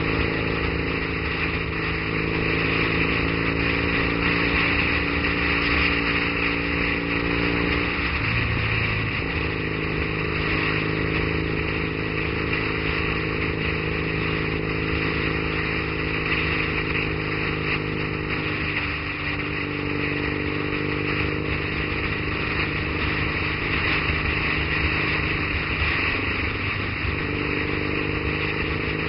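Triumph Bonneville's parallel-twin engine running while riding at a steady cruise, with constant wind and road noise. The engine note breaks and shifts pitch three times: about eight seconds in, near nineteen seconds and near twenty-seven seconds.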